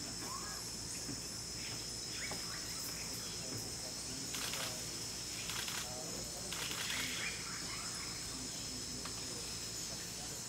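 Steady high-pitched rainforest insect chorus, with scattered short high chirps and a few brief noisy bursts near the middle.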